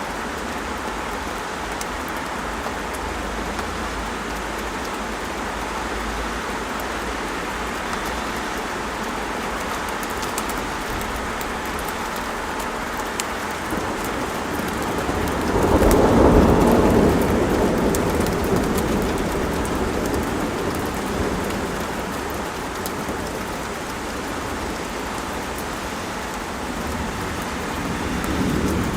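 Steady rain falling, with a long rumble of thunder that swells about halfway through and slowly fades over several seconds.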